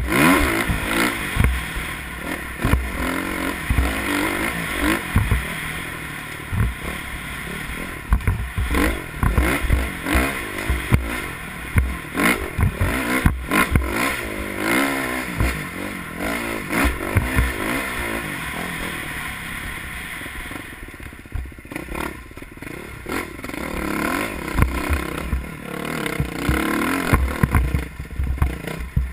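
Off-road dirt bike engine revving up and down under load as it is ridden over rough ground, with frequent knocks and clatter from the bike hitting rocks and ruts. The engine eases off for a few seconds past the middle, then picks up again near the end.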